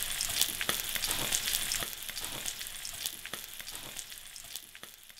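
Food frying in hot oil: a steady sizzle full of crackling pops that fades out gradually.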